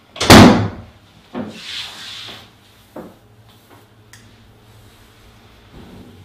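A door bangs shut about a third of a second in, the loudest sound. It is followed by a brief scraping rub and a single small click about three seconds in, then quiet room tone.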